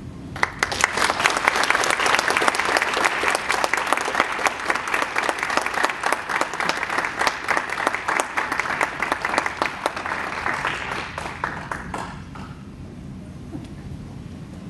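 Audience applauding: many hands clapping together, starting at once and dying away about twelve seconds in.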